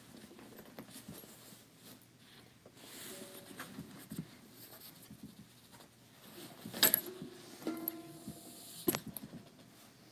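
A small lyre harp being picked up and handled: rustling and knocks on its wooden frame, a sharp knock about seven seconds in and another near nine, with a few of its strings ringing briefly after the first.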